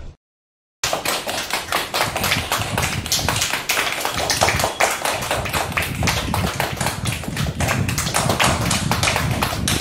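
Several children clapping their hands, a dense, uneven run of quick claps that starts after a short silence about a second in.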